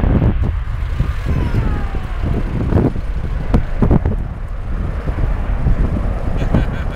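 Airbus A330-300 jet engines at takeoff thrust: a loud, uneven low rumble as the airliner rolls down the runway and lifts off, with a whine that falls in pitch about a second in.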